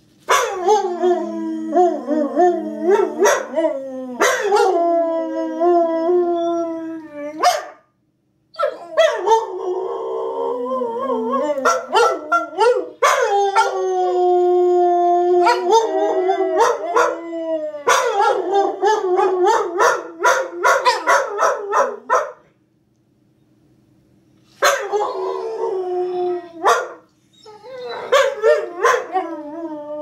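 Dogs howling along with a tornado siren: long wavering howls mixed with short yips, breaking off briefly about 8 seconds in and again for a couple of seconds past the middle. A faint steady siren tone carries on under the pauses.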